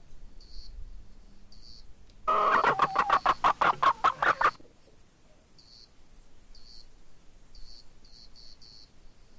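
A hen clucking in a fast run of pulses for about two seconds, starting a little over two seconds in. Faint short high chirps come and go around it.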